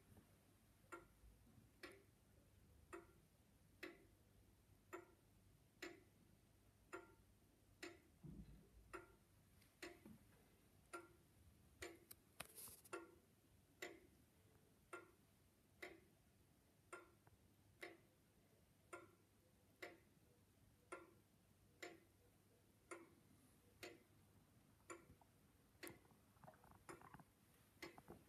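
Pendulum wall clock with a skeleton movement in a glass case, ticking quietly and evenly at about one tick a second.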